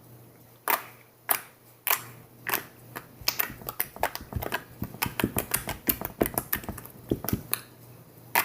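Slime being squeezed and worked by hand, making irregular sharp pops and clicks: a few spaced ones at first, then thick and fast from about three seconds in.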